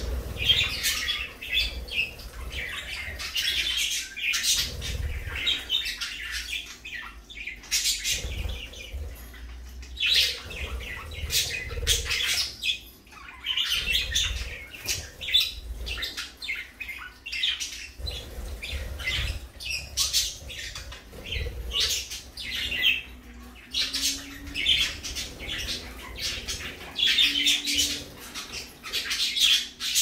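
Several pet budgerigars chattering and chirping in quick, high-pitched bursts that come and go the whole time.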